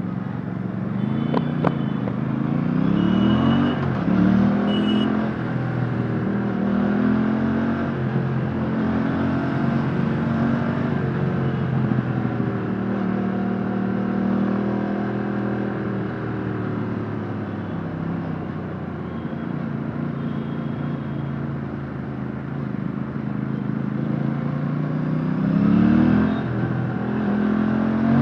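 Stock exhaust of an Aprilia RS457's 457cc parallel-twin engine under way, heard from onboard. Revs climb in quick steps through the gears about two to four seconds in, then hold fairly steady with slow rises and falls, and climb again near the end.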